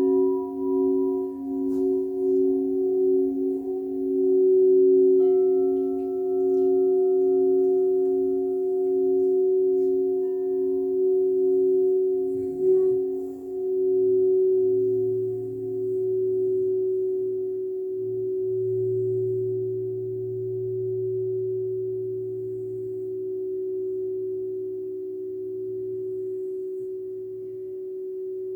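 Crystal singing bowls ringing in several long held tones that pulse with a slow, even wobble. A lower tone joins about halfway through, and the ringing slowly fades near the end.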